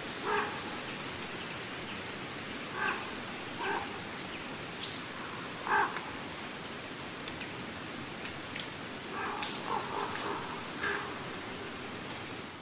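Short, harsh animal calls, about eight of them spaced irregularly, some close together in pairs and a run of three about nine seconds in, over a steady hiss of background noise. Faint thin high whistles from small birds come through now and then.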